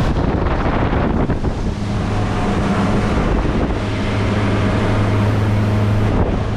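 Outboard motors of a center-console boat running steadily under way, a constant low hum, with wind buffeting the microphone and water rushing past the hull.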